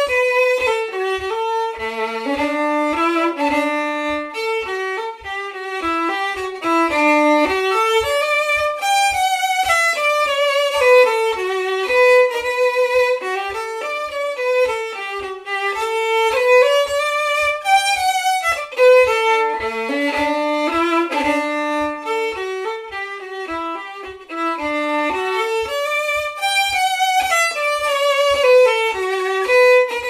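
Solo fiddle playing a brisk Scottish traditional tune, a single ornamented melody line. A soft low tap keeps time beneath it, about twice a second.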